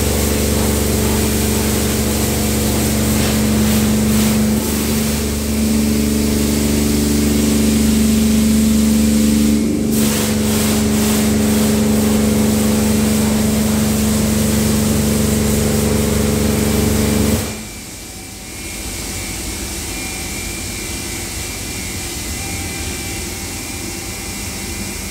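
Tammermatic T700 Lux touchless car wash running its high-pressure program: a steady pump hum under the hiss of water jets spraying the car. The spray and pump cut off sharply about seventeen seconds in, leaving a quieter steady machine hum.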